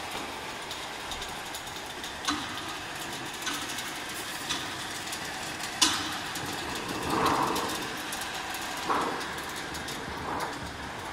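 Compact metal-strip slitting machine running steadily, with several sharp knocks and clicks, the loudest about six seconds in.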